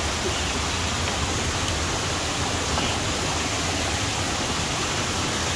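High-running mountain stream rushing over boulders: a steady, even rush of water.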